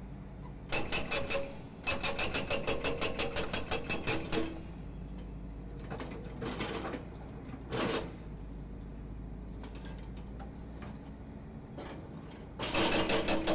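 Hydraulic breaker hammer on a Volvo EC210D excavator pounding a concrete pile chunk, in bursts of rapid blows about five a second: a short burst about a second in, a longer one of a couple of seconds, two brief ones in the middle, and a new burst starting near the end. A steady engine hum carries on between bursts.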